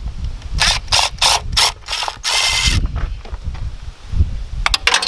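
Cordless power tool with a socket on an extension, run on bolts at the front of a BMW M52 engine: four short bursts about a second in, one longer run about two seconds in, then a quick flurry of short bursts near the end.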